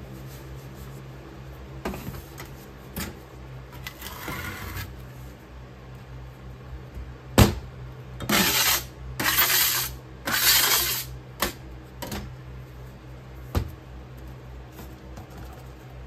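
Plastic scraper striking excess molding sand off the top of a casting flask in three scraping strokes, each about a second long. A single sharp knock just before them is the loudest sound, with a few lighter knocks and taps of tools on the table before and after.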